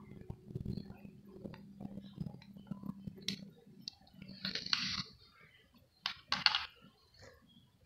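Hands handling a plastic motorcycle headlight visor shell and its mounting bolts: scattered light clicks and knocks of plastic and metal, a short scraping rustle about halfway through, and a few sharp clicks a little after six seconds.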